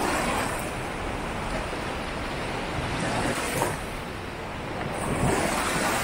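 Sea surf washing onto the beach: a steady rush that swells three times, near the start, a little past the middle and again near the end, as waves break.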